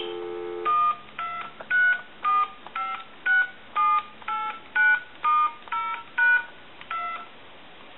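Harris TS22 lineman's butt set on a telephone line: a dial tone that stops when the first digit is pressed, followed by about a dozen touch-tone (DTMF) key beeps about half a second apart as a phone number is dialled.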